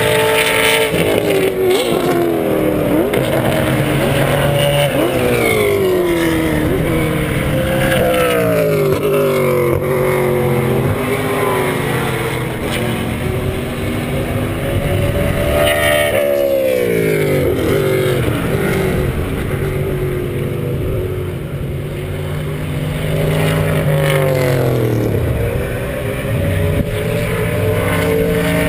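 SCCA Trans Am race cars, mostly Corvettes and Camaros, braking hard into a corner one after another. Each engine note drops in pitch as the car slows and downshifts, then climbs again as it accelerates away. Several cars pass in turn.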